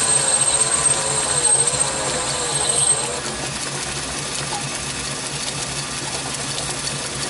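Metal lathe running with a twist drill in the tailstock chuck boring into a spinning brass bar, drilling the tapping hole for an M8 thread. A high whine and a wavering lower tone for the first three seconds, then the lathe runs on more quietly and steadily.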